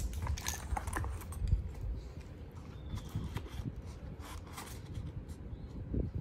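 Light clicks and rattles of pencils and marker pens being handled and slotted into a pencil case, a quick cluster in the first second and then scattered clicks.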